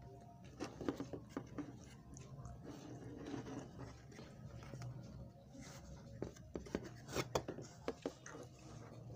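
Handling noise from an old TV circuit board with a metal-cased tuner module being turned over in the hand: scattered light clicks and taps, in a cluster about a second in and another around seven seconds in, over a low steady hum.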